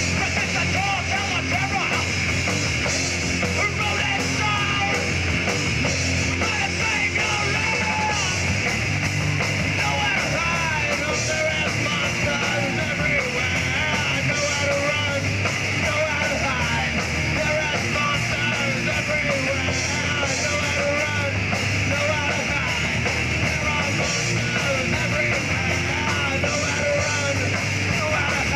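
A rock band playing a loud punk-rock song live, with electric guitars, a drum kit and shouted vocals.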